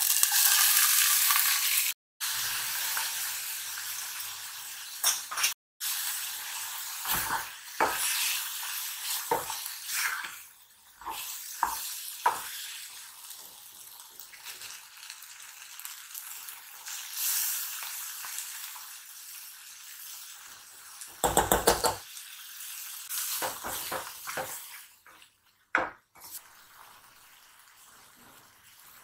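Food sizzling in a hot frying pan, the hiss loudest at the start and easing off, with scattered knocks and clicks of a utensil stirring against the pan and a quick run of clicks about two-thirds of the way through.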